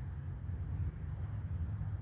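Low, fluctuating rumble with no bird calls.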